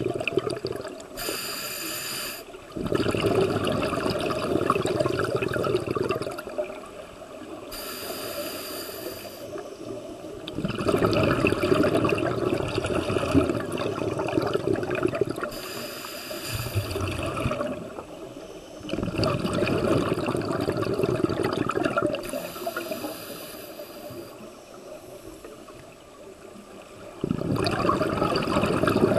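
Scuba diver breathing through a regulator underwater, about four breaths: each starts with a short hissing inhale that carries a thin whistle, then a longer, louder burble of exhaled bubbles.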